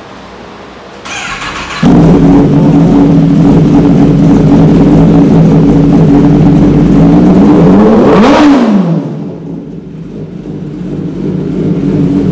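Kawasaki ZX-10R's inline-four engine starting in a basement: a brief starter whirr about a second in, then the engine catches and runs at a steady high idle. Around eight seconds in it is revved once, rising and falling quickly, after which it runs quieter.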